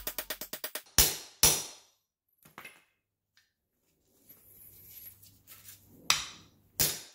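Small claw hammer striking a steel impact socket to drive the old bushing out of a Honda Civic's rear lower control arm: sharp metal blows, two about a second in, a faint one soon after, and two more near the end.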